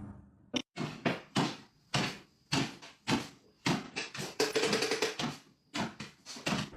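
A quick series of sharp knocks or bumps, about two or three a second in an uneven rhythm.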